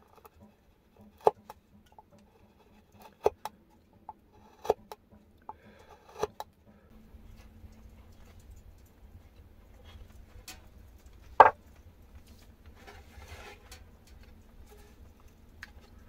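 Scattered sharp clicks and knocks of a hand carving chisel cutting into a wooden board and of the board being handled, the loudest about eleven seconds in. A faint steady buzz joins about seven seconds in.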